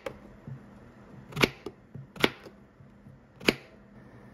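Kitchen knife slicing through Korean zucchini (aehobak) and striking the cutting board: three sharp knocks about a second apart, with a few fainter taps between.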